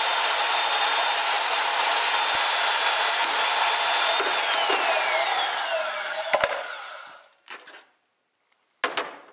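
Porter-Cable portable band saw cutting through a snowmobile handlebar, its motor running with a steady high whine. About four seconds in the motor is switched off and the whine falls in pitch as it winds down, with a sharp metal clank as it stops. A few short knocks of metal being handled follow near the end.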